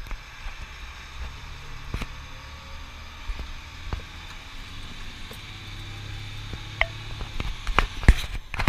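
Engine and road noise inside a moving fire engine's crew cab: a steady low rumble with a faint engine hum, broken by occasional knocks and rattles that come more often near the end.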